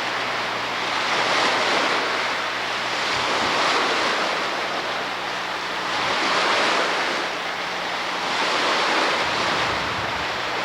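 Lake Superior waves washing onto the shore of Whitefish Bay, swelling and easing about every two and a half seconds.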